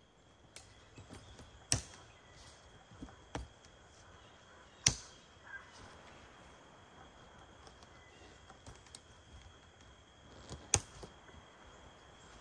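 A few sharp clicks and knocks at irregular intervals, the loudest about two, five and eleven seconds in, over a faint steady high tone.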